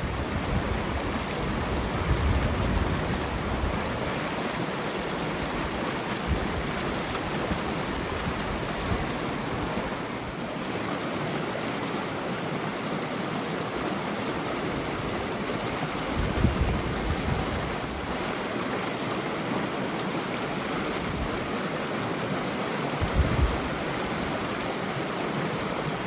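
River water rushing steadily, with gusts of wind buffeting the microphone now and then.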